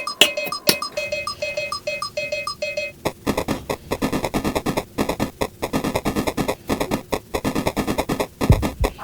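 Electronic music: a short beeping tone repeats about twice a second, with clicks, for the first three seconds. It then gives way to a fast, dense clicking and rustling texture.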